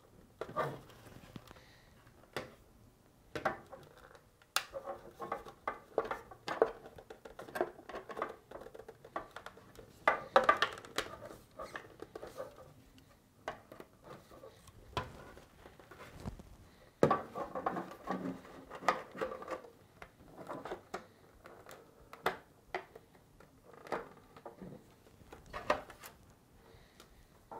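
Scattered sharp plastic clicks and short scrapes as a flat-blade screwdriver pries the locking tabs of the trim loose from a Whirlpool refrigerator's plastic dispenser shield, working down the tabs one by one.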